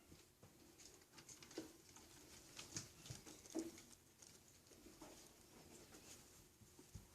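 Faint, irregular scratching and light taps of small pets' claws scrambling about on a kitty condo, with a faint steady hum underneath.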